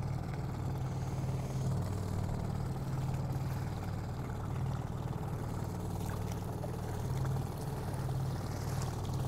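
Small boat's motor running steadily at trolling speed, a low even hum.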